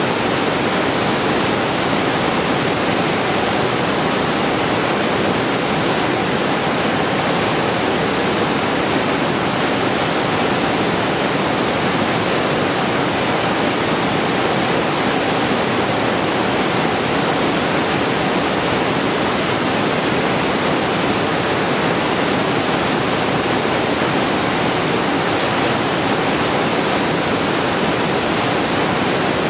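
Waterfall rushing steadily: a constant, even roar of falling water with no changes.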